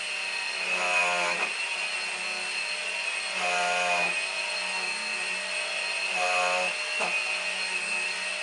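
Numatic Henry Quick cordless vacuum cleaner running over sofa upholstery with its turbine brush head, making a steady high whine. A lower humming tone swells and fades four times, about every two and a half seconds.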